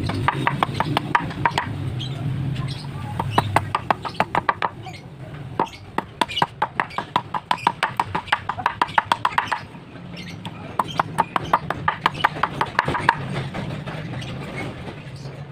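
Machete chopping and whittling a tree branch into a slingshot fork: quick runs of sharp blade strikes into the wood, several a second, in four bursts with short pauses between.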